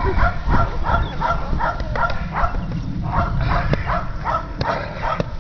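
Seven-week-old Belgian Malinois puppy yapping in a rapid string of short, high barks, about three a second, while it bites and tugs at a training rag.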